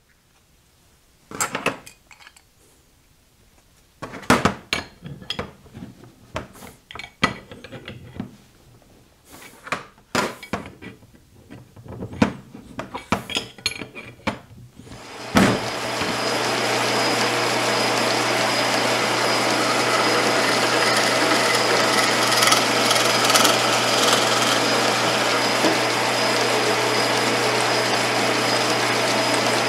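Irregular metal clicks and clanks of steel collet chuck holders and hand tools (a wrench and pliers tightening an ER16 collet nut) being handled on a bench. About halfway through, a drill press starts and runs steadily with a constant motor hum, drilling into a pine board.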